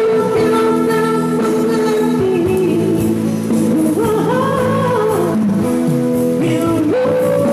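Music: a slow old pop song, a melody of long held notes over guitar accompaniment.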